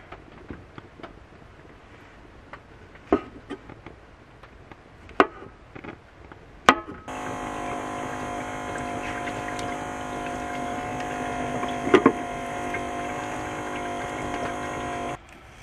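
A few sharp knocks of a kitchen knife on a wooden cutting board. Then a small electric water pump hums steadily for about eight seconds while water runs from the sink faucet, with one louder knock partway through, and cuts off abruptly when the tap is closed.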